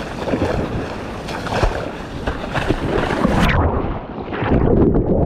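Seawater sloshing and splashing around a GoPro held at the surface as a bodyboarder paddles out through whitewater. About three and a half seconds in, a wave washes over the camera and the sound suddenly turns muffled and dull.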